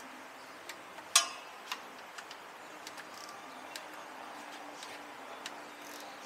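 Scattered light metallic clicks and ticks of hand tools working on metal, at an uneven pace, with one sharp ringing metal clink about a second in.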